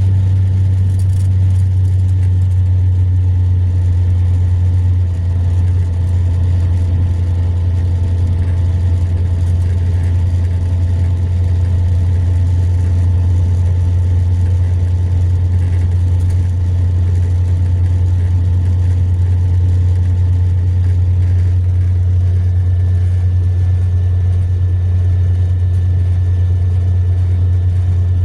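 Diesel engine of a Mercedes-Benz long-distance coach running at a steady highway cruise, heard from inside the coach as a steady low drone with road noise.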